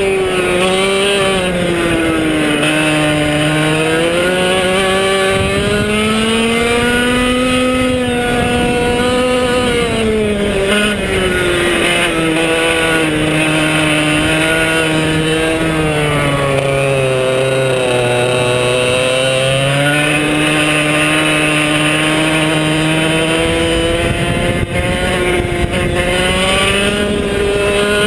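100cc two-stroke kart engine, direct drive with no clutch, running hard around a track. Its revs drop several times as the kart slows for corners and climb again on the straights.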